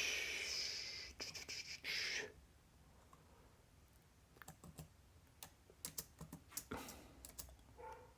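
Keys on a freshly fitted replacement laptop keyboard being pressed one at a time in a key test, as separate clicks from about halfway in. A brief noisy sound comes first, in the first two seconds.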